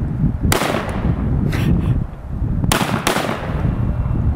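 Gunshots from a 7.62x39 AK pistol: a single shot about half a second in, then two in quick succession near the three-second mark, not a bump-fire burst; the drum magazine is not feeding properly. Wind buffets the microphone throughout.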